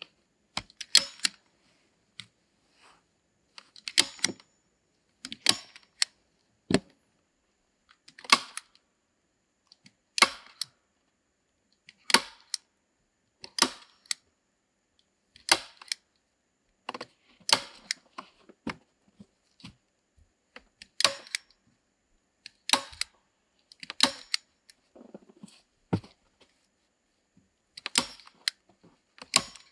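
Manual staple gun firing staples through felt insulation into a wooden door: a sharp metallic snap roughly every one and a half to two seconds as the strip is fastened down.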